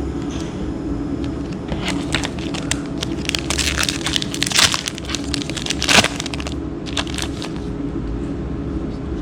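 Crinkling, crackling and sharp clicks of booster-pack wrappers and trading cards being handled, coming in a cluster from about two to seven seconds in, over a steady low hum.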